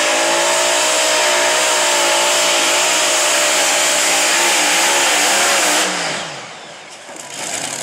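Modified pulling tractor running its several supercharged engines at full throttle under load, loud and dense, its pitch wavering up and down. Nearly six seconds in the throttle comes off and the revs fall away.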